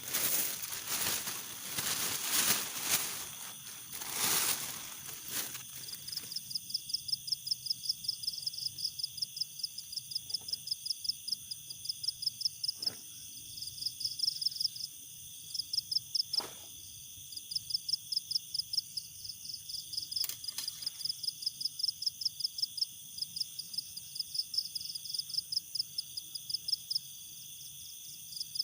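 Night insects: crickets chirping in rapid pulsed trains over a steady high-pitched buzz of other insects. A rustling noise fills the first few seconds, and a few sharp clicks come later.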